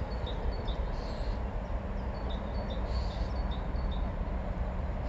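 A small bird singing a run of short, high, repeated notes, a few per second, pausing briefly about a second in and starting again, over a steady low rumble of wind and distant traffic.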